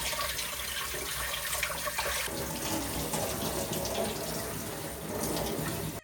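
Water running steadily from a tap into a sink, with a slight change in the splash about two seconds in.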